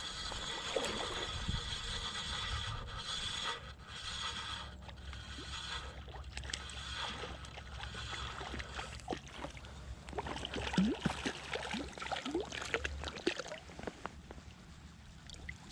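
Spinning reel being cranked to bring in a hooked brown trout, its gears whirring steadily for the first few seconds, over running creek water. Scattered clicks and scrapes follow.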